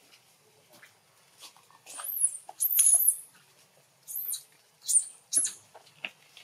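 Baby macaque giving about five shrill, high-pitched squeals that arch up and down in pitch. The loudest come around two to three seconds in.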